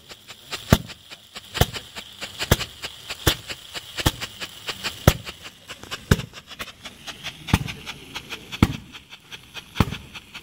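Stage-pyrotechnic strobe charges going off while they burn: sharp pops roughly once a second, slightly uneven, with smaller crackles between them, over a steady hiss from the burning composition.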